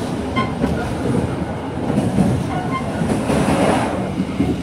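Passenger train running, heard from inside a carriage: a steady noise of the wheels on the rails, with a brief hiss swelling about three seconds in.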